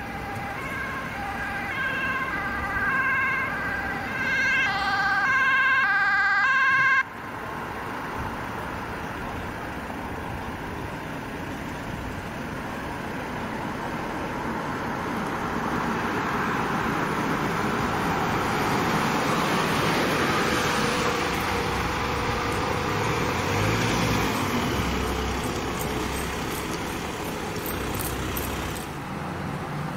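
Ambulance two-tone siren alternating between a high and a low note, cutting off suddenly about seven seconds in. Then the Mercedes ambulance van's engine and tyres grow louder as it approaches and passes, loudest about two-thirds of the way through.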